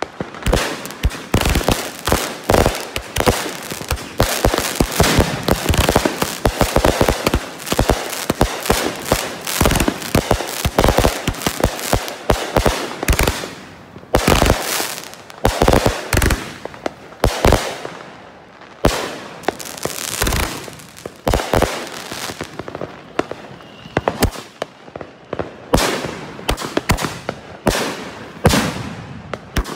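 Consumer firework cakes firing a grand finale: a dense, rapid barrage of launch thumps and aerial bangs with crackle, with a few short lulls.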